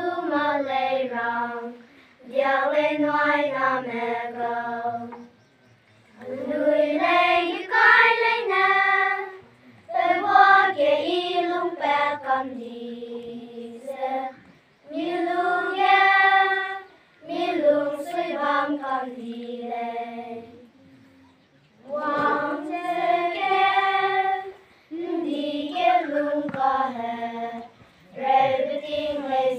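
A choir singing without accompaniment, in short phrases of a few seconds each with brief pauses between them.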